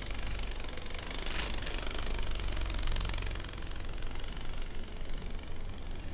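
Kanabun flower chafer beetle in flight, its wingbeats making a deep steady droning buzz like a small drone or idling engine.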